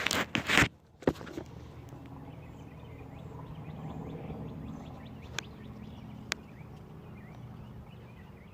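Steady low outdoor rumble with faint bird chirps, broken by two single sharp clicks in the second half, typical of a tool or part touching metal on the engine being worked on.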